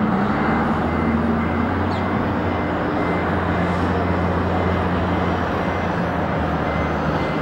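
Steady low hum from a Boeing 767-300 airliner, partly masked by wind noise on the microphone.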